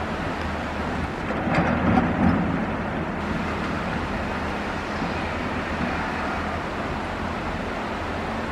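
Excavator's diesel engine running steadily, with a louder clattering stretch about one and a half to two and a half seconds in.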